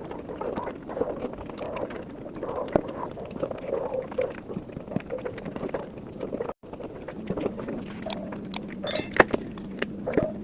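Close-miked chewing and wet mouth sounds of someone eating curry and omelet, with many small irregular clicks and smacks. About six and a half seconds in the sound briefly drops out, and after that a faint steady hum sits under the eating.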